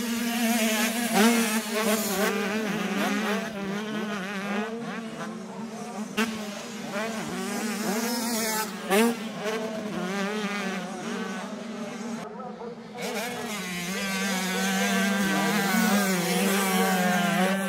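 Several 85cc two-stroke motocross bikes racing, engines revving up and falling away again and again over a steady drone of more bikes on the track.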